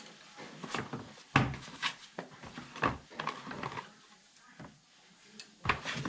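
Irregular clicks and knocks of computer hardware being handled while a RAM memory stick is lined up and pressed into a motherboard DIMM slot.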